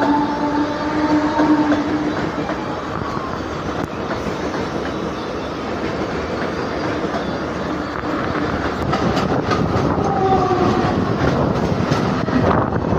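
Mumbai suburban electric local train running at speed, heard from its open doorway: a steady rumble and the clatter of wheels over rail joints. A steady tone is held through the first two seconds, and shorter tones come about ten seconds in.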